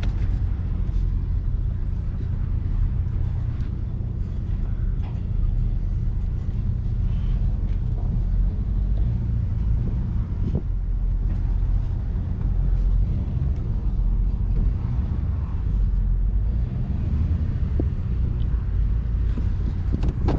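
Vehicle engine running steadily at low speed, a constant low rumble, with a few light knocks over it.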